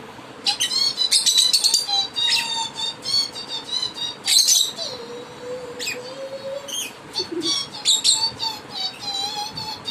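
Lovebird chirping and twittering in rapid, high-pitched bursts and trills. About five seconds in, a lower held tone sounds underneath for over a second.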